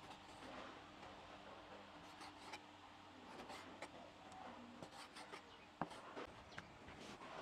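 Faint rubbing and scraping with scattered light clicks and taps, more frequent in the second half, over a faint steady hum.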